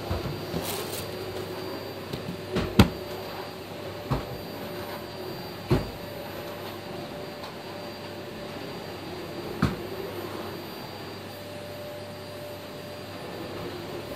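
Scattered knocks and thumps over a steady background hum, the loudest about three seconds in, as a person moves about right next to the phone.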